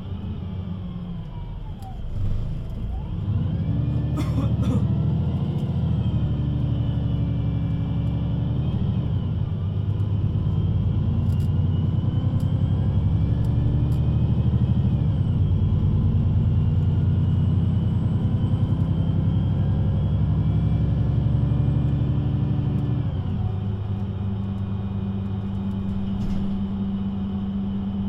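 VDL Citea LLE 120 city bus engine with a Voith automatic gearbox, pulling away under power. It starts at a steady idle, picks up about two seconds in, climbs in pitch and steps back at each upshift, then eases off to a quieter steady drone about five seconds before the end.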